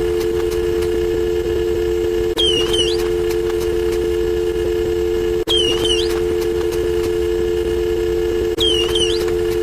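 A looped sound effect: a steady two-note hum with a pair of short rising chirps, repeating about every three seconds, with a brief drop in level at each restart.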